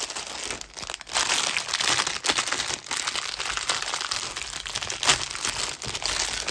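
Clear plastic bag crinkling and rustling as hands work it open and pull out a strung bead necklace. The rustle grows louder about a second in and goes on as a busy crackle.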